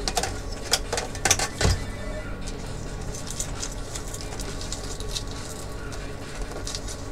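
The sheet-metal chassis of a Dell E177FPb LCD monitor being handled and tipped upright on a workbench: a few light metallic clinks and a dull knock in the first two seconds, then only faint handling noise.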